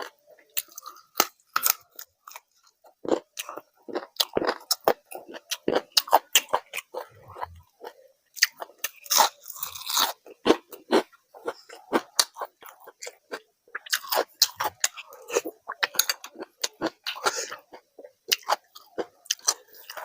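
Close-miked chewing and biting, with many irregular crisp crunches, as a person eats a meal with crunchy food.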